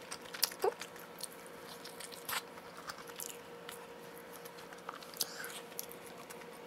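A person biting and chewing pizza close to the microphone: scattered soft crunches and wet mouth clicks.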